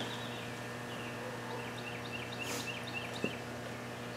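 Steady low hum, with a bird chirping a quick run of short, high notes through the middle.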